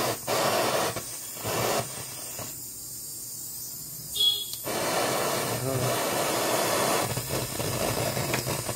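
LPG jewellery soldering torch, fitted with its No. 1 jet, running with a steady gas-and-flame hiss. About two and a half seconds in the hiss drops away for about two seconds; a sharp click comes just before it returns.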